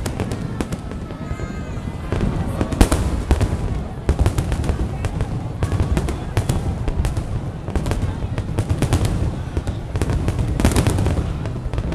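Fireworks display: a dense run of bangs and crackles over a continuous low rumble, with crowd voices under it.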